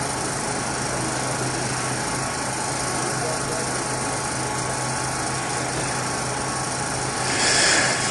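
Steady hiss of an amplified microphone line with a low electrical hum, held through a pause in Quran recitation. A brief louder rush of noise comes near the end.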